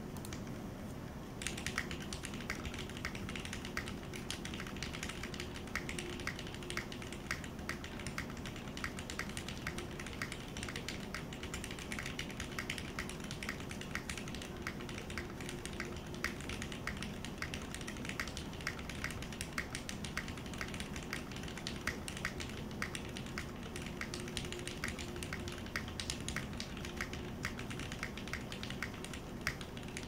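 Fast, continuous typing on a Matrix Corsa mechanical keyboard with Cherry MX Black Hyperglide linear switches in an aluminum plate, GMK doubleshot keycaps and no foam: a steady stream of keystroke clacks that starts about a second and a half in.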